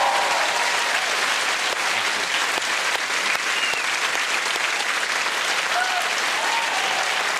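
Studio audience applauding steadily, with a few faint voices calling out over the clapping.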